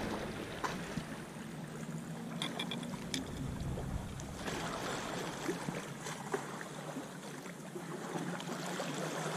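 Small waves lapping on a pebble shore, with wind, a faint steady low hum underneath and a few light ticks a couple of seconds in.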